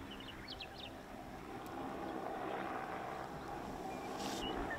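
Faint, steady hum of the Kitty Hawk Heaviside electric aircraft's propellers flying past overhead, swelling slightly about halfway through, with a few short bird chirps near the start.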